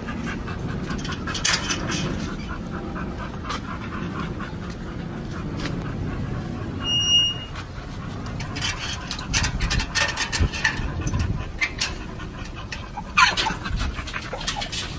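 Pit bull terrier panting hard and fast with its mouth open, in an even rhythm. A brief high-pitched tone sounds about halfway through, and sharp clicks and knocks come in the second half.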